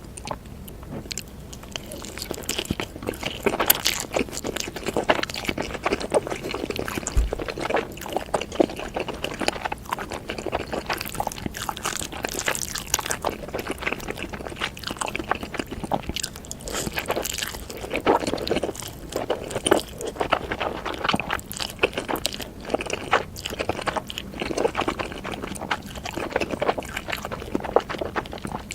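Close-miked mouth sounds of a person eating noodles: chewing and biting, with many short irregular clicks.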